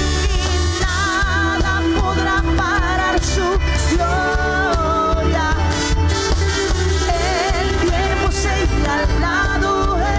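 Live worship band playing: singing with vibrato over electric guitars, keyboards, drums and a heavy bass.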